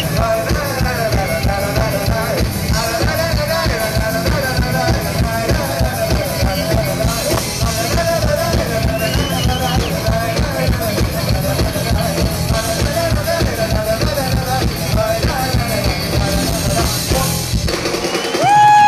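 Live pop-rock band playing: a steady drum beat, electric guitars and a male lead singer, heard from the audience. Near the end the drums and bass drop out and a loud held note rings out.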